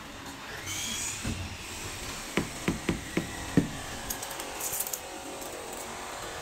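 Rubber mallet tapping a large floor tile five times in quick succession, bedding it down into the sand-cement mortar.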